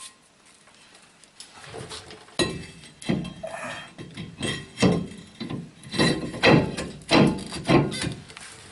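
Irregular metal clunks and knocks as a truck's front wheel hub assembly is worked onto the axle splines and steering knuckle. They start a couple of seconds in, about seven or eight loud ones over the rest of the time.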